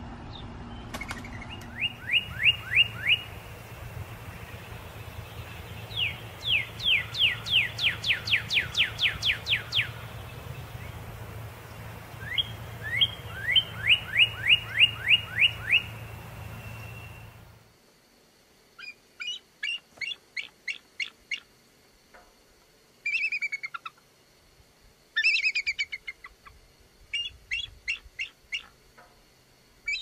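Northern cardinal singing: three runs of loud, sharply down-slurred whistles, each run a quick series of about ten notes. After an abrupt cut, a quieter background and several phrases of rapid, high chittering calls from another bird.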